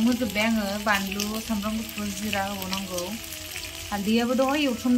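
Chicken and onion frying in oil in an iron wok, a steady sizzle with fine crackling. A wavering melody of background music plays over it.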